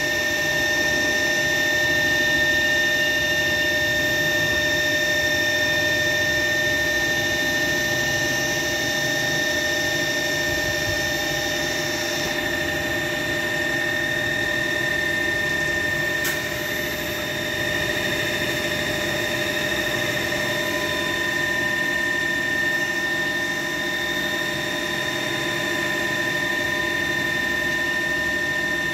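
CNC milling machine with a Fanuc 21i-MB control running a program: a steady machine hum with a high, even whine over it. A higher hiss drops away about twelve seconds in, and there is a faint click about four seconds later.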